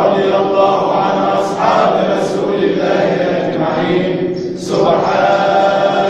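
Sufi dhikr chant: a group of voices chanting together in long, sustained phrases, with a short break about four and a half seconds in.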